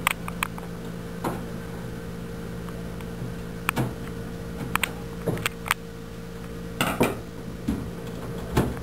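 Sharp metal clicks and knocks from a screwdriver on the rear screws of a desktop computer case, then the sheet-metal cover being pushed back, over a steady low hum.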